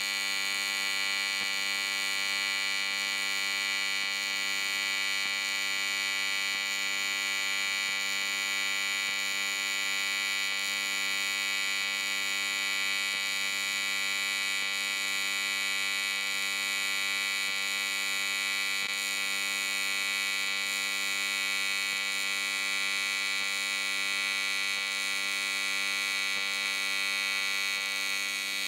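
AC TIG welding arc on aluminum, a steady electric buzz as a bead is laid along a line, cutting off at the very end.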